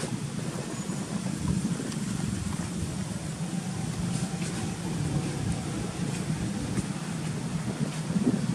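A steady low rumble of outdoor background noise, with a few faint ticks about four to five seconds in.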